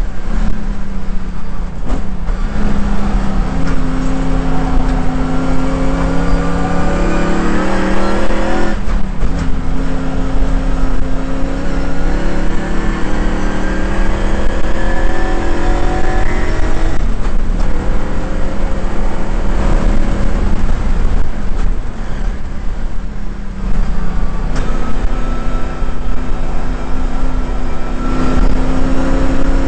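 Shelby GT350's V8 engine at racing speed, heard from inside the car: the revs climb through the gears, with quick drops at upshifts about 2, 9 and 17 seconds in. It backs off and comes back unevenly for a few seconds past the middle, then pulls hard again toward the end.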